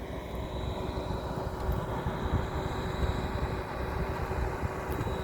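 A heavy construction machine's engine running steadily with a faint steady whine and a low rumble.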